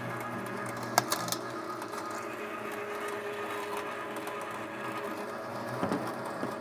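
Weston #32 electric meat grinder running steadily with a motor hum while grinding raw chicken, with a few sharp clicks about a second in.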